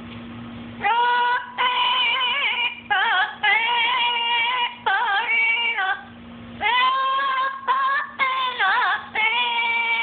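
Blue-fronted Amazon parrot singing a wordless tune in a human-like voice: a string of held notes with a wavering pitch, broken by short pauses, beginning about a second in.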